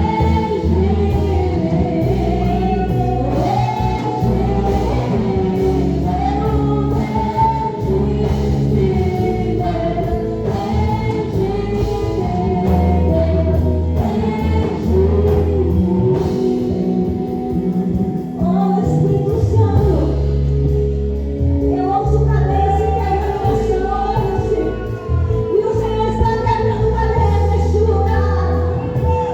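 A gospel worship song: voices singing a melody over instrumental accompaniment, with sustained bass notes that change every few seconds.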